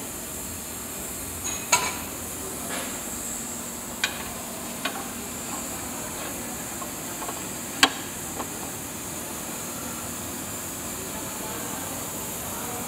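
Electric pipe and bar threading machine running while its die head cuts threads on a steel rod: a steady machine noise with a few sharp metallic clicks, the loudest about eight seconds in.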